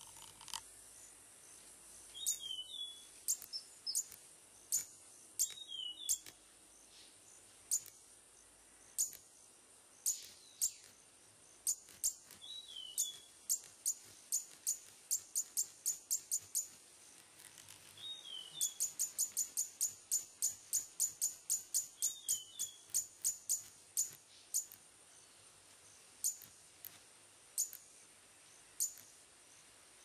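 Male red-capped manakin displaying: sharp wing snaps, spaced out at first, then a fast run of about four a second past the middle, with several short, high down-slurred calls between them. A steady high insect hum runs underneath.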